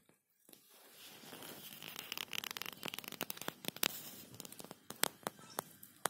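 Cockatiel nibbling and tearing spinach leaves with its beak: a run of small crisp clicks over a leafy rustling and tearing, busiest in the middle and thinning toward the end.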